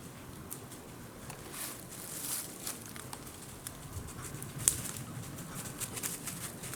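Footsteps rustling and crunching through dry forest leaf litter, irregular light crackles with one sharper snap about two-thirds of the way through.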